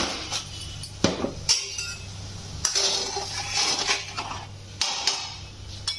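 A spoon clinking against the pot while stirring salt into water at a rolling boil, several sharp clinks over the bubbling of the boil.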